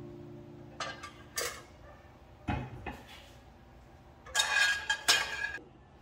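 Glass pot lid with a metal rim and a pot being set into a black wire pan rack: a few separate clinks and knocks, then a louder burst of clattering about four seconds in.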